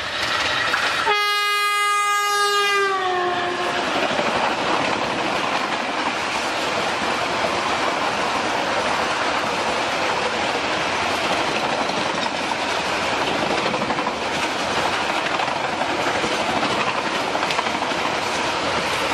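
An oncoming passenger train's locomotive sounds its horn, a chord-like blast of about two seconds whose pitch drops as it passes. Then the steady rush and clatter of its coaches going by close alongside at speed, heard from another moving train, with wheels clicking over the rail joints.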